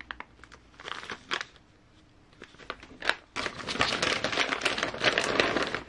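Plastic parts bags rustling and crinkling as they are handled: scattered light crackles at first, then continuous crinkling for the last two and a half seconds or so.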